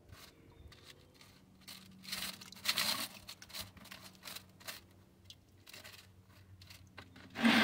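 Fingers picking and raking through pebbly gem ore on a wire-mesh sifting screen: small stones clicking and scraping against each other and the mesh in irregular bursts, loudest about two to three seconds in.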